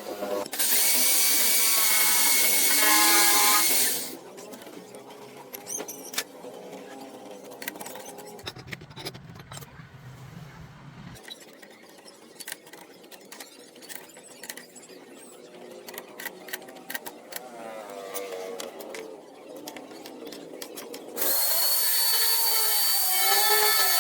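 A power tool runs loudly in two stretches, about half a second in to about four seconds in and again from about 21 seconds, with a whining tone. Between the two runs there are scattered clicks and knocks.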